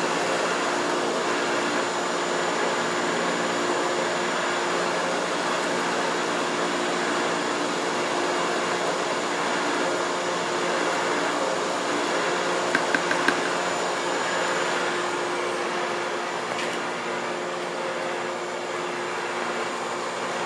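LABINS VORTEX high-shear homogenizer running steadily, its electric motor and rotating shafts churning a bucket of foaming liquid while dispersing CMC (carboxymethyl cellulose), with a steady hum. A few quick clicks come about two-thirds of the way through.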